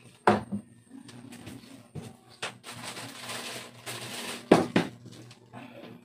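A plastic modem/router set down on a tabletop with a knock, followed by scattered knocks and a few seconds of rustling handling noise, the loudest knock near the end. A steady low hum runs underneath.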